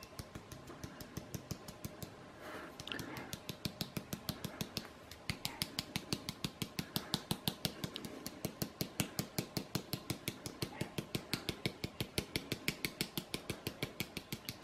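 A hand-held chocolate powder shaker being shaken over a stencil: a quick, steady run of light ticks, about five or six a second, which grow louder about five seconds in.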